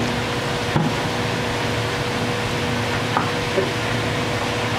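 Steady hiss and hum of kitchen air conditioning, with a few faint knocks and scrapes as a knife cuts through a raw whole chicken on a plastic cutting board.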